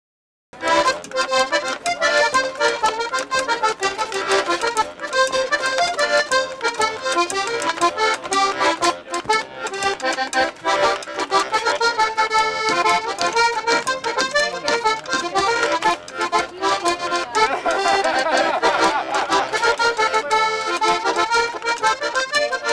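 Button accordion playing a traditional tune, starting about half a second in.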